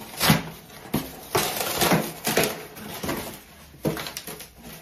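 Cardboard shipping box flaps being pulled open and brown packing paper crinkling and tearing, in a run of sharp crackling rustles.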